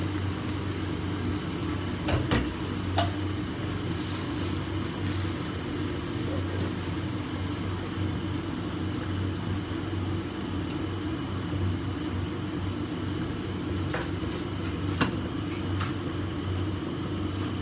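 Bacon strips frying in a pan on a gas hob, over a steady low hum, with a few sharp pops or clicks about two and three seconds in and a few more near the end.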